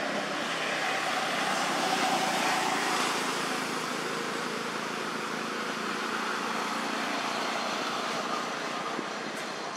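Steady rushing background noise that swells slightly about two seconds in and then eases off gently.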